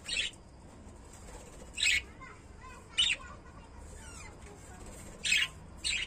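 Pet budgerigar giving five short, shrill squawking calls, spaced about one to two seconds apart, the last two close together near the end.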